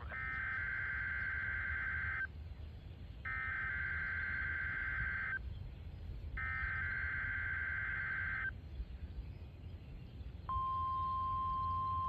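National Weather Service Emergency Alert System tones: three warbling SAME header data bursts, each about two seconds long with about a second's pause between them, then the steady single-pitch 1050 Hz alert tone starting near the end.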